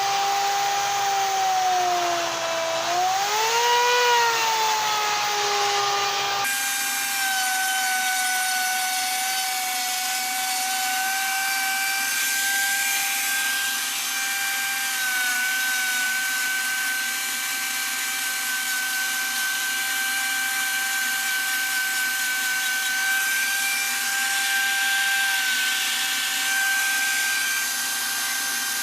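High-speed rotary tool fitted with a carbide saber tooth flame bit, whining steadily as it cuts detail into wood. Its pitch sags and recovers under load early on and again briefly about fifteen seconds in.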